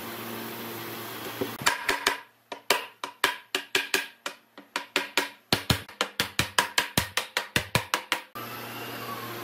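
Wooden mallet striking a pine tabletop over and over, about four blows a second with two short pauses, knocking it down onto the leg dowels.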